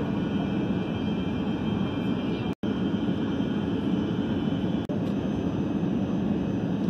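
Steady cabin noise inside an Airbus A380 airliner in flight: an even, low rush of engine and airflow noise. The sound cuts out completely for an instant about two and a half seconds in.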